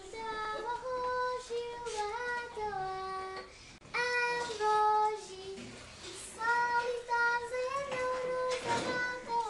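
Children singing a melody together in unison, in short phrases with brief pauses between them.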